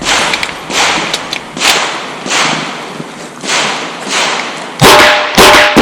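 A string of .38 Special revolver shots from a Chiappa Rhino, spaced roughly a second apart. The last two, near the end, are the loudest and are followed by a brief ringing tone.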